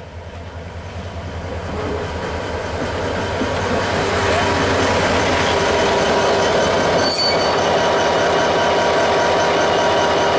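Diesel locomotive rolling slowly over railway points, growing louder over the first few seconds and then steady: a low engine rumble with wheels squealing on the rails, and one sharp knock about seven seconds in.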